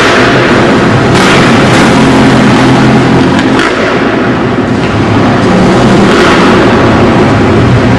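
Motocross bike engine revving up and down as the bike rides the track, very loud and close to overloading the camcorder microphone.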